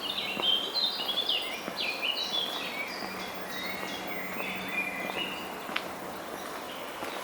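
Several small birds chirping and twittering in quick, overlapping calls, busiest in the first three seconds, over a steady hum of background noise. A single sharp click comes about six seconds in.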